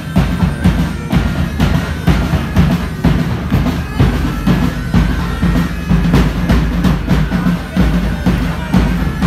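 Loud music with a steady drum beat and heavy bass.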